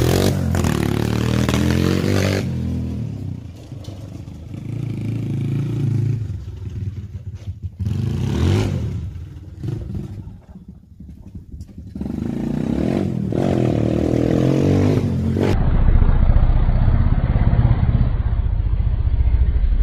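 Minirocket Raptor 150 cc single-cylinder four-stroke ATV engine being ridden, its revs rising and falling in several surges. It gets louder near the end as the quad comes back close.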